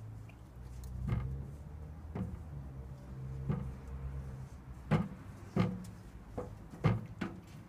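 Pet turtles' hard shells knocking and tapping against each other and the tank, about eight irregular sharp knocks with the loudest in the second half, over a low steady hum.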